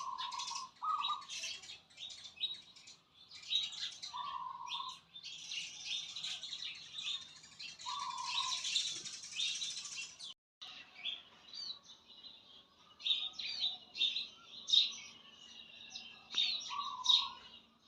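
Several birds chirping and singing together in a dense chorus of quick, high chirps and trills, with a lower, short call repeating every few seconds. The sound cuts out briefly about ten seconds in.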